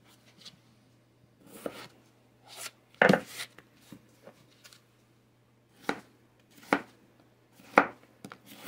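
Chef's knife chopping raw potatoes into cubes on a cutting board: irregular sharp knocks of the blade on the board, about one a second, the loudest about three seconds in.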